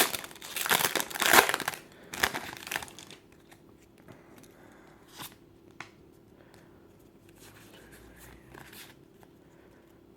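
Foil Pokémon booster pack wrapper crinkling and being torn open, loud for about the first three seconds. It then drops to faint handling noise with a few light clicks.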